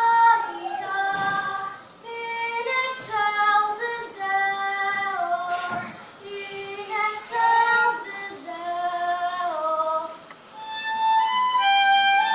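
A young girl singing a solo song in phrases, with short pauses for breath between them. Near the end her voice stops and a fiddle takes up the tune.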